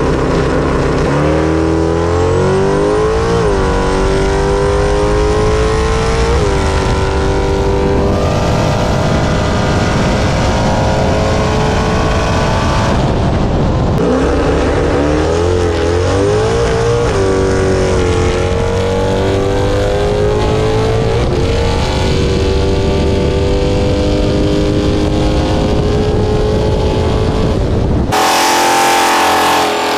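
Ram pickup's Hemi V8 at full throttle on a drag-strip pass: the pitch climbs steadily through each gear and drops at every upshift, a few seconds apart. About halfway through the sound cuts to a second run that climbs the same way. Near the end it cuts to a different, noisier car sound.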